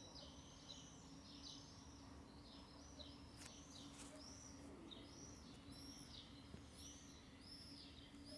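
A bird chirping faintly over and over, short arching chirps at about two a second, over a low steady hum.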